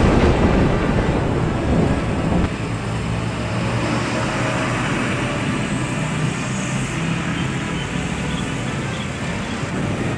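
Street traffic with heavy trucks and motor scooters running past: a steady engine and tyre rumble. A loud boom dies away over the first couple of seconds.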